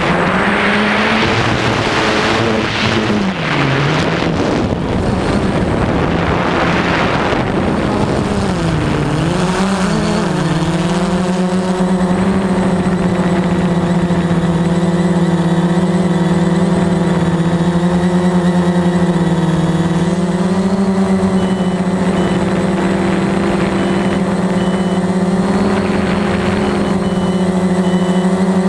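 Veho Muvi Q1 quadcopter's motors and propellers humming loudly. The pitch dips twice in the first ten seconds, then holds steady. A rushing noise runs over the first several seconds.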